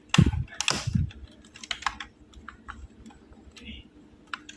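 Clicks and knocks of hands handling a laptop's plastic case and parts. Two louder knocks come in the first second, then scattered light clicks.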